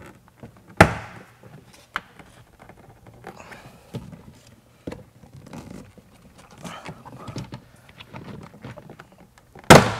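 Plastic retaining clips of a BMW E46 rear door trim panel snapping loose as the panel is pulled off by hand. There is one sharp, loud pop about a second in and an even louder one near the end, with smaller clicks and the rustle of the panel being handled in between.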